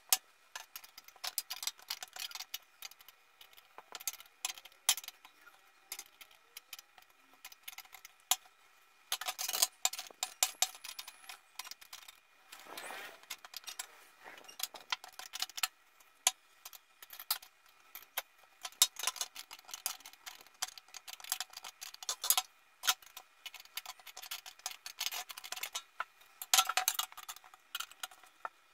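Copper jewelry box being handled and turned: irregular taps, clicks and scrapes of fingers and nails on the metal, in clusters, with a faint ringing of the copper under them.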